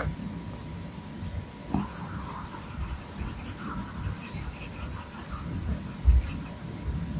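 Stylus tip tapping and rubbing on an iPad Pro's glass screen during brush strokes, with a dull low thump about six seconds in.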